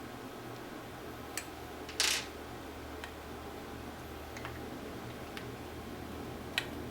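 Small metal clicks as screws are worked out of a hard drive with a T8 Torx screwdriver. The loudest is a short, sharp metallic clink about two seconds in, like a small screw being set down or dropped on a hard surface. A low steady hum runs underneath.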